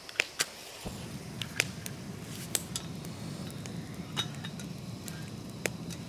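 Portable gas camping burner being lit: a couple of clicks, then the flame catches suddenly a little under a second in and keeps up a steady low rush. A small metal kettle clinks and taps as it is set on the burner.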